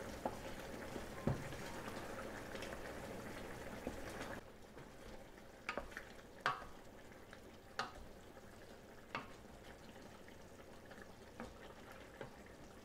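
A wooden spatula stirring chicken pieces in a large stainless steel pot of simmering broth: a steady bubbling hiss for the first four seconds, then a quieter stretch with several sharp knocks of the spatula against the pot.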